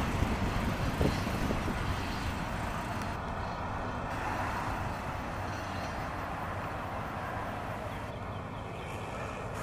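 Freight train of steel boxcars rolling away along the track, its wheels rumbling on the rails with a couple of sharp clacks about a second in, the sound slowly fading as the rear brake van recedes.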